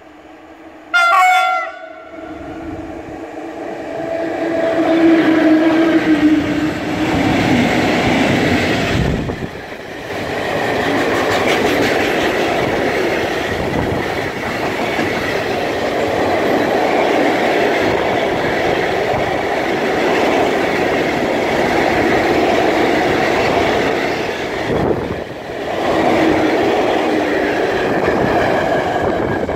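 ET22 electric freight locomotive sounds a short horn blast about a second in, then passes with a falling tone. A long train of tank wagons follows, rolling by with a steady noise and wheels clattering over the rail joints.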